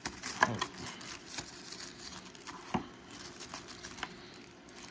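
White wrapping crinkling and rustling as a small screwdriver is unwrapped by hand, with several light clicks and knocks of the tool and box, the sharpest about two and three-quarter seconds in.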